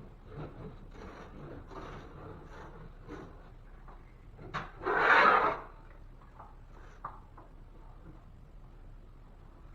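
Hand work on a drywall patch: small, scattered rubbing and scraping sounds, with one louder rasping scrape lasting under a second about five seconds in.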